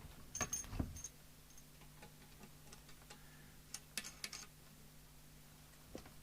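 Small sharp clicks and light knocks from handling the CB radio and its cable connections, in two short clusters, over a faint steady low hum.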